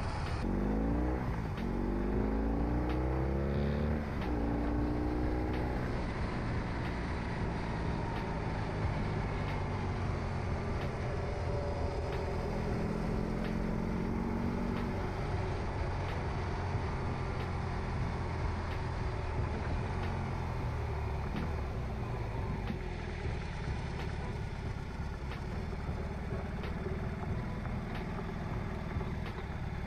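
BMW R18 Transcontinental's 1,802 cc boxer twin under way: its pitch climbs through several rising sweeps in the first few seconds as the bike accelerates through the gears, then it settles into a steady cruise.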